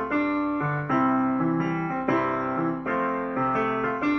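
Keyboard or electric piano playing a chordal accompaniment, with a new chord struck about every second or so.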